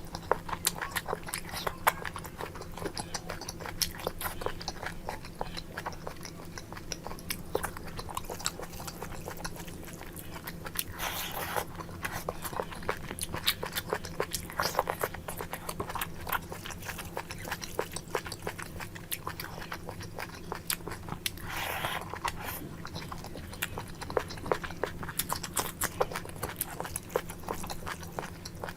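A person chewing and biting boti with their mouth close to the microphone: a steady run of wet clicking mouth sounds, with a few longer, noisier mouthfuls along the way, over a faint steady hum.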